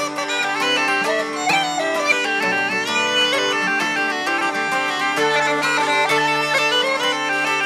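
Uilleann pipes playing a traditional Irish jig over steady held drones, with an acoustic guitar strummed in rhythm beneath.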